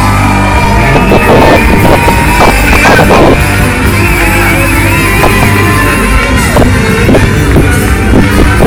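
A live funk band playing loudly, with sustained melodic lines over a full, steady bass and drums.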